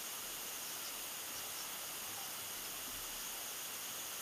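Steady, even hiss of the recording's background noise, with no distinct sounds.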